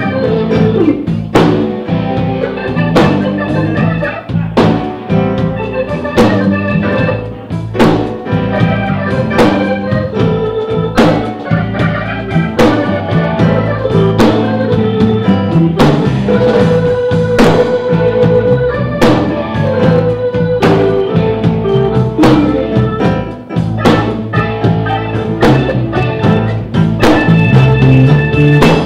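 Live blues band playing: organ-toned keyboard chords and held notes over electric bass, with drum hits on a steady beat.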